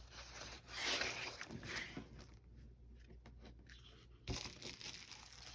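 Paper rustling as the pages of an old paper doll book are turned and handled, a few soft swishes at first, then a quieter stretch, then a sharp tap about four seconds in.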